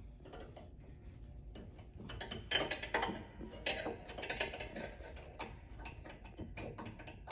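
Light metallic clicks and scrapes of pliers and piano wire against a grand piano's tuning pins as a bass string end is inserted into its pin. The clicks are scattered and cluster loudest a little over two seconds in.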